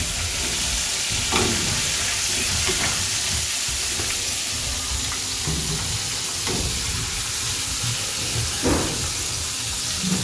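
Floured shrimp sizzling as they deep-fry in a pan of hot oil, a steady hiss throughout. A few light knocks mark the wire strainer and tongs working in the pan as the cooked shrimp are lifted out.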